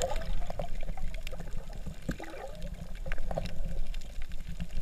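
Underwater sound through a GoPro housing: a steady muffled low rumble of moving water, with scattered sharp clicks and a few short warbling bubble sounds.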